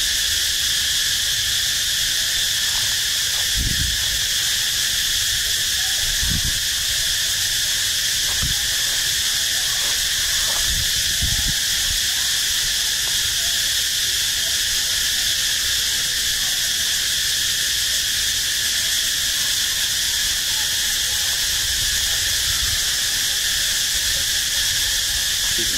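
A steady, continuous chorus of insects droning at a high pitch, with a few low thumps in the first half.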